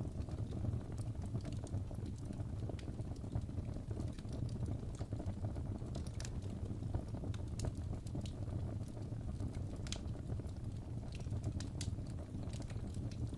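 Fire burning in a fireplace, crackling: irregular sharp pops and snaps over a steady low rush of the flames.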